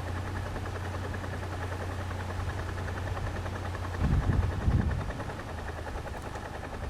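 A vehicle engine running steadily with an even low hum, with a few louder low thumps about four seconds in.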